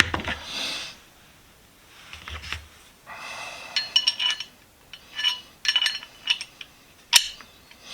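Steel parts of a 12-inch Ridgid pipe wrench clinking and scraping as they are handled. There is a brief rub at the start, a string of short ringing clinks in the middle, and a sharp click about seven seconds in.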